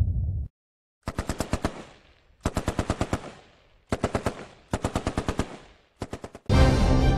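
Automatic machine-gun fire in five short bursts with brief gaps, about ten rounds a second. A low pulsing sound cuts off just after the start, and music begins near the end.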